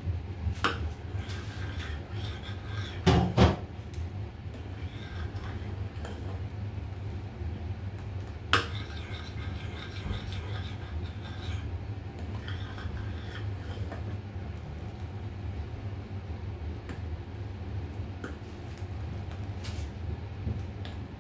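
A metal spoon stirring sauce in a small stainless-steel saucepan, scraping and clinking against the pan, with a few sharper knocks about three seconds in and again near the middle. A steady low hum runs underneath.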